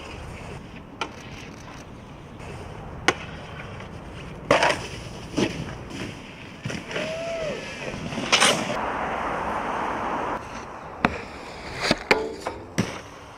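Snowboard hitting and sliding on a hard street feature: sharp knocks and clacks, with a rough scrape lasting about two seconds in the middle and a quick run of knocks near the end.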